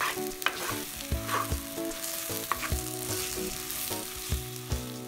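Baby jackfruit cutlet mixture sizzling as it fries in oil in a clay pot, stirred with a wooden spoon that scrapes and knocks against the pot several times.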